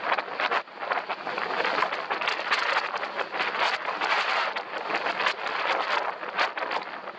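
Skis sliding and scraping over groomed snow on a downhill run, mixed with wind rushing over the microphone: a continuous hiss broken by many short scrapes.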